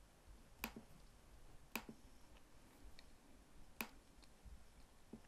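Three sharp computer mouse clicks, the second about a second after the first and the third about two seconds later, over near silence, with a few fainter clicks between.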